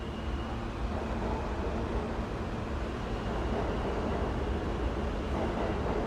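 New York subway station ambience: a steady low rumble of a subway train, growing slightly louder about a second in, with faint high thin tones above it.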